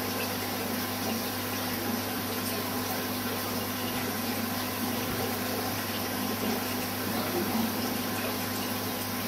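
Aquarium filter pump and circulating water running steadily, with a low electrical hum.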